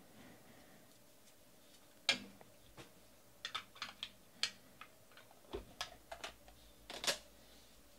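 A stack of trading cards set down on a table with a sharp tap about two seconds in, followed by a scatter of quick, light clicks and taps.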